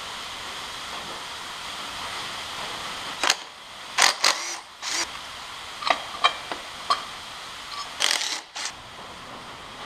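Cordless power tool run in several short bursts to back out motor-mount bolts, with a few sharp metal clicks between the bursts.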